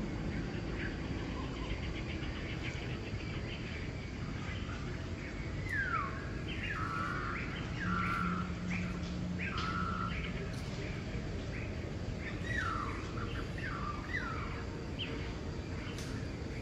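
Newborn macaque crying: a run of about a dozen short, high-pitched squeals that each slide downward in pitch, starting about six seconds in, the distress calls of a baby being grabbed and handled by its mother. A steady low hiss of background noise runs underneath.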